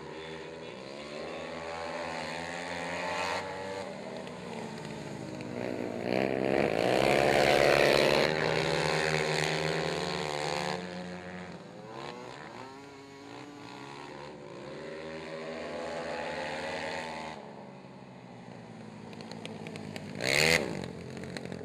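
Several racing quad ATV engines revving, their pitch rising and falling with the throttle, loudest as the pack passes about halfway through and then fading. A short loud burst cuts in near the end.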